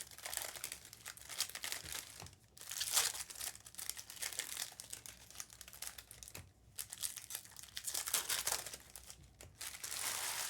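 Wrappers of Panini Select basketball card packs being torn open and crinkled, an irregular crackling with two short pauses.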